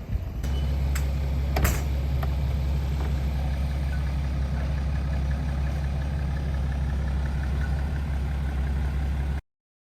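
BMW GT's engine running at a steady idle, a low even hum that comes in about half a second in, with a few sharp clicks in the first two seconds; it cuts off suddenly near the end.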